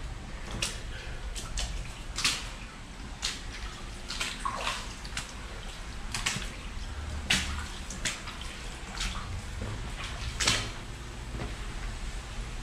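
Rubber-booted footsteps splashing through shallow water on a stone tunnel floor, an uneven step about once a second.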